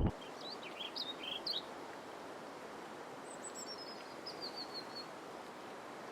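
Small birds chirping over a steady outdoor hiss: a few short chirps in the first second and a half, then a quick series of falling notes about three seconds in.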